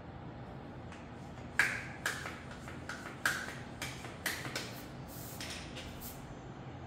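Irregular sharp clicks and light knocks, about a dozen over four seconds, from hand work on a folding e-bike.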